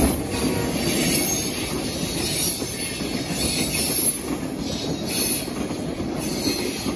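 Freight train hopper cars rolling past on a steel trestle: a steady rumble of steel wheels on rail, with brief high-pitched wheel squeals several times, slowly fading as the train goes by.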